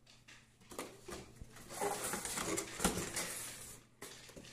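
A cardboard box being pushed and handled on a tile floor: scraping and rustling of cardboard, with a sharp knock a little before three seconds in.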